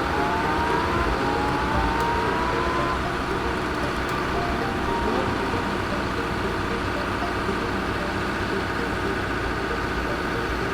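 Heavy diesel vehicle engine running steadily, with a faint higher note rising briefly in the first few seconds.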